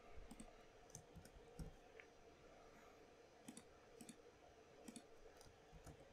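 Faint, irregular clicking of a computer keyboard and mouse as text is typed and buttons are clicked.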